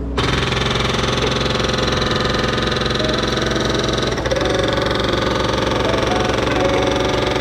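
Bobcat S70 skid-steer loader's diesel engine running steadily with a low, even clatter.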